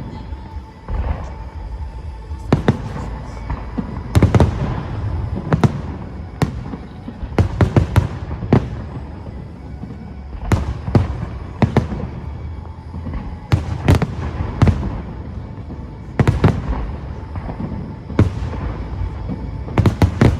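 Aerial fireworks shells bursting in sharp bangs, often in quick clusters, one burst every second or two, with music playing underneath.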